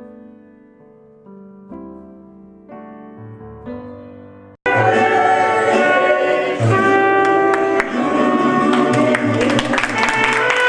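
Slow piano music with held chords, then an abrupt cut about four and a half seconds in to much louder, busier music with many sharp clicks and taps.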